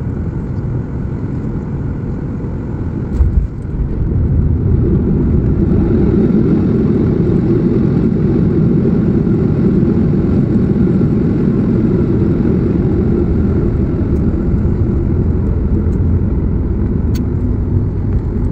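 Jet airliner cabin noise while the plane rolls on the ground: a steady engine rumble with a brief knock about three seconds in, after which the engine noise grows louder and stays up.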